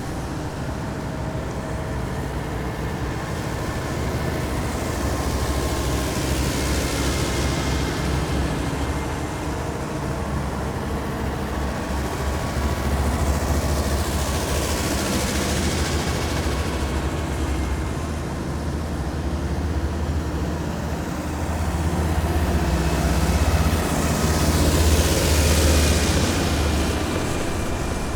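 A column of heavy military vehicles passing one after another, their engines making a constant deep rumble. Three vehicles in turn swell loud as they pass close and then fade, about 7, 15 and 25 seconds in.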